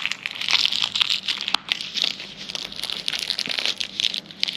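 Packaging crinkling and rustling in the hands, with many small irregular crackles and clicks, as items are pulled out of a tightly packed small box.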